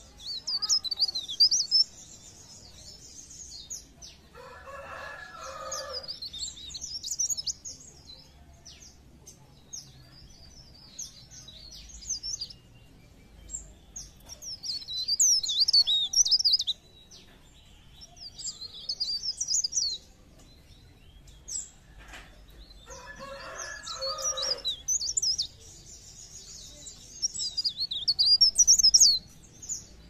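Leaf warbler (cikrak daun, pare-pare bird) singing: repeated phrases of rapid, very high chirps and trills, each a second or two long, with short pauses between. Twice a lower, rougher sound about a second and a half long comes in under the song.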